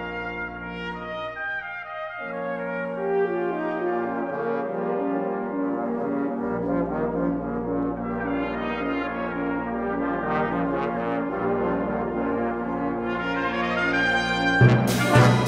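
Brass ensemble of trumpets, French horns, trombones and tuba playing a concert piece. Held chords give way after about two seconds to busy, interweaving lines that climb. Loud percussion strikes come in near the end.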